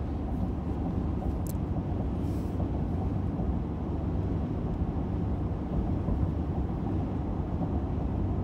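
Steady road noise inside a car's cabin at highway speed: a low, even rumble of tyres and engine.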